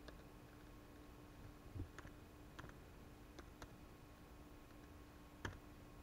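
Faint, scattered laptop keyboard clicks, about half a dozen keystrokes spaced out as a name is typed in, over a faint steady hum.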